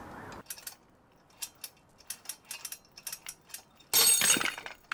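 Scattered light metallic clicks from the shackles, hook and chain of a hanging-scale tensile rig as load builds on a 3D-printed ABS test bar, then a loud clattering rattle about four seconds in as the bar breaks and the metal hardware jerks and swings.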